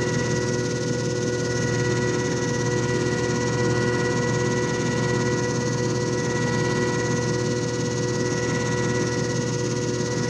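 JFJ Easy Pro disc repair machine running steadily, its motor giving a constant hum with a few steady pitched tones over it.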